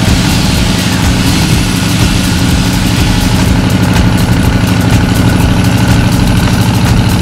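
Chevrolet K30 pickup's engine running steadily at low revs as the truck creeps forward towing a tree.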